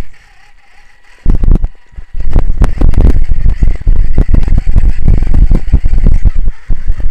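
Wind buffeting and rumble on a small camera's microphone while it moves. It is quiet for about the first second, comes in short bursts, and then runs continuously from about two seconds in.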